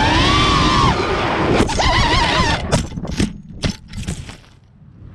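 FPV freestyle quadcopter's motors whining, the pitch swinging up and down with the throttle. About two and a half seconds in, the whine breaks off into a string of short rough hits as the quad crashes into brush and its props strike the stems.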